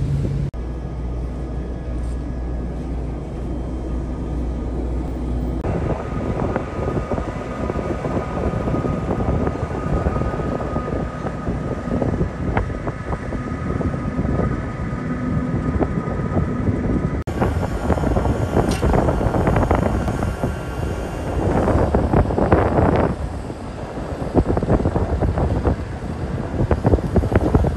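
Wind buffeting the microphone on a crude oil tanker's deck over a steady low hum of the ship's machinery, with faint steady tones under it. The mix changes abruptly about 6 and 17 seconds in.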